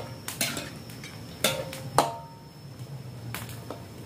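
Metal spatula knocking and scraping against a metal wok while stirring, in irregular clanks, some with a short metallic ring; the loudest comes about two seconds in.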